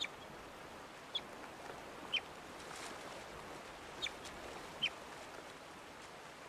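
Young North American river otter giving five short, high chirps over the steady rush of river water: the calls of a youngster separated from its family.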